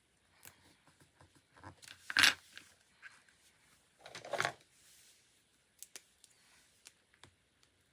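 Paper-craft handling at a desk: paper, stickers and stationery being handled, with scattered small taps and clicks and two louder paper noises, a sharp one about two seconds in and a duller one about four seconds in.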